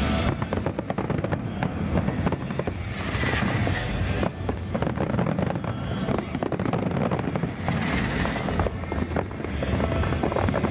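Aerial fireworks display: a dense, continuous run of overlapping bangs and crackles from shells bursting, over a steady low rumble.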